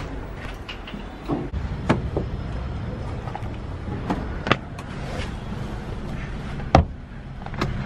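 Scattered knocks, clicks and cloth rustling as someone settles into a car's front passenger seat, over a low steady rumble. One loud thump near the end.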